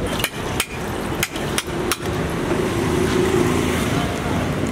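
About five sharp knocks of cooking utensils in the first two seconds, over a steady low background hum.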